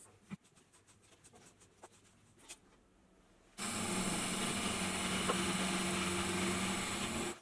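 Faint ticks and clicks of a tap being turned by hand in a tap handle. About three and a half seconds in, a milling machine starts cutting, and its face-milling cutter is heard machining an aluminium block as a loud, steady whir with a low hum and a hiss.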